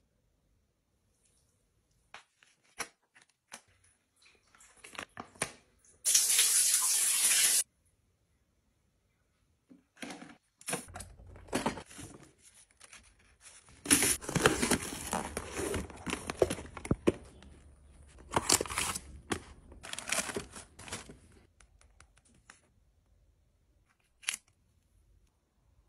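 Close-up handling of plastic skincare packaging: dense rustling and crinkling as sheet-mask sachets are pulled out and shuffled, with a short sharp tear of a sachet being ripped open near the end. Earlier there is a steady hiss lasting about a second and a half.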